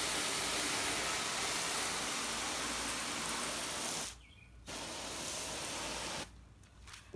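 Water spraying hard from a nozzle on its flat setting, a steady hiss in two bursts: a long one, a brief stop, then a shorter one.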